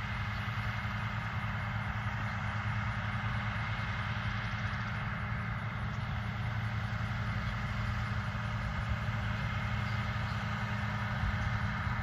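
International Harvester tractor's diesel engine running steadily as it pulls a round baler through windrowed hay.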